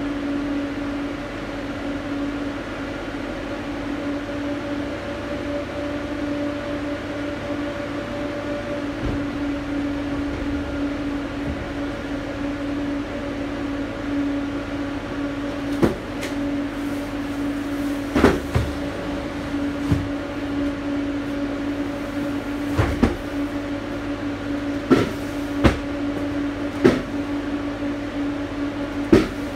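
A steady machine hum at one constant pitch. In the second half, about eight short knocks and bumps from a worker moving about and handling the load in the truck's cargo box.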